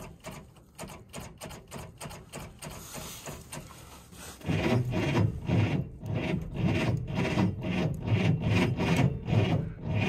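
GAZ-66 truck engine being cranked over on its starter with the help of a jump-starter booster: a rhythmic churning that grows much louder about four and a half seconds in, without the engine catching.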